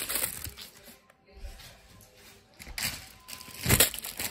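Wrapped candy packets rustling and crinkling in their plastic and foil wrappers as a clear plastic bag of candy is tipped out onto a heap of wrapped candy. A louder rustle comes as a handful of packets lands near the end.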